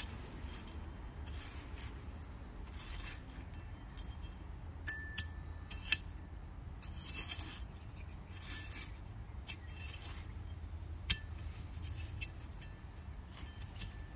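Small metal hand trowel scraping and pushing soil and bark mulch over planted seeds, in short repeated strokes. A few sharp metallic clinks ring out as the blade strikes something hard, three close together about five to six seconds in and one more later.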